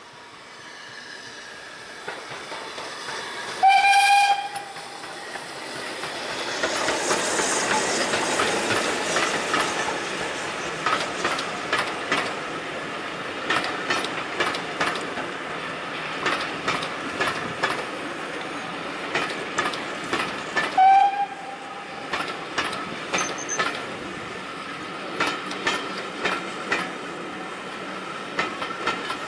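Steam locomotive and its coaches passing close by: the locomotive's whistle gives a short blast a few seconds in and another about two-thirds of the way through, the loudest sounds. Between them the running noise swells as the engine goes past, then coach wheels clatter over the rail joints in a steady clickety-clack.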